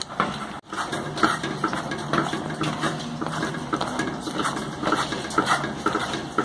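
A silicone spatula stirs and scrapes thick, bubbling chocolate brigadeiro around an aluminium saucepan, making a run of irregular scrapes and squelches. The brigadeiro is being cooked down to a spoonable consistency.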